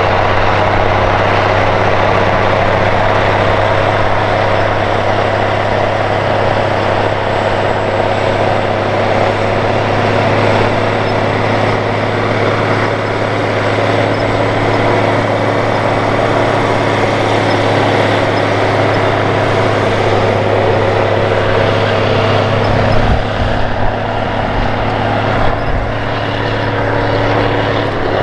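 Steiger Cougar ST280 four-wheel-drive tractor's big six-cylinder diesel running steadily under load while pulling a tillage implement through the field, with a deep, even drone.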